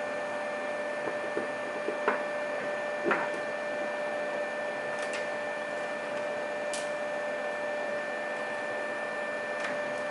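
Steady background hum with a few fixed tones, with a handful of faint light clicks and taps from small objects being handled, the clearest about two and three seconds in.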